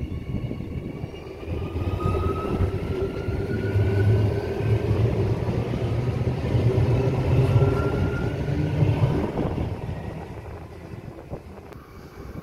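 Adelaide Metro 4000 class electric multiple unit passing close by: a low rumble of wheels on rails with a faint rising electric whine, swelling after a couple of seconds and fading out about ten seconds in.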